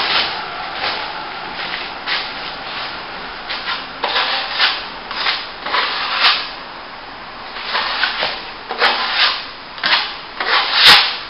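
Plastering trowel scraping over a wet top coat of plaster in a dozen or so short, irregular strokes, feathering the edges of a plasterboard repair. A sharp knock near the end.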